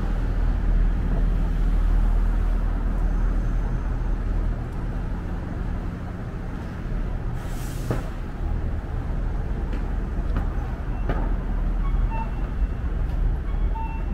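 City street traffic: a steady low rumble of vehicle engines and tyres, with a short hiss of a bus's air brakes about halfway through.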